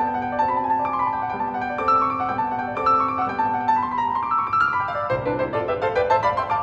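Background music: a piano playing a flowing melody, with a quick upward run of notes near the end.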